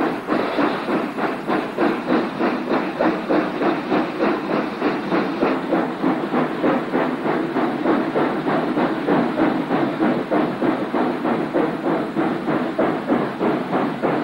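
NSWGR 60-class Beyer-Garratt steam locomotive working hard past at close range, its exhaust chuffing in a steady beat of about two a second.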